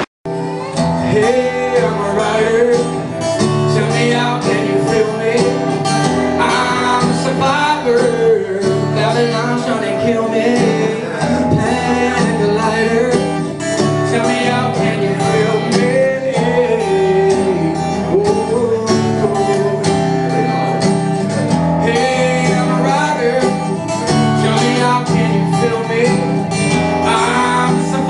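Live song: a woman singing while playing guitar, with strummed chords under a wavering vocal melody.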